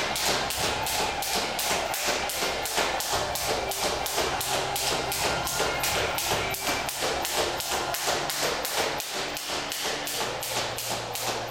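Skipping rope: the rope strikes the floor and the shoes land, in a steady rhythm of about three strokes a second.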